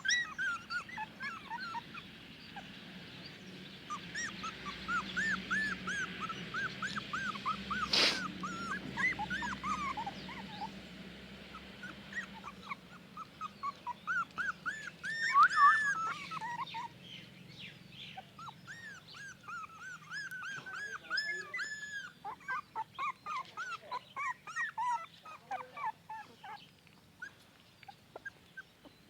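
Newborn puppies whimpering and squeaking in many short, high cries, with a brief sharp knock about eight seconds in.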